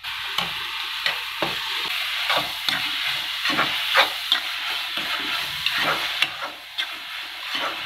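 Chopped onions and ginger-garlic paste sizzling steadily in hot oil in a kadai while a perforated steel ladle stirs them, with frequent clicks and scrapes of the ladle against the pan. The raw ginger-garlic paste is being fried off.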